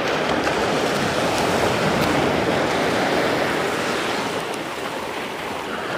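Steady rush of sea surf, waves breaking and washing up on a beach.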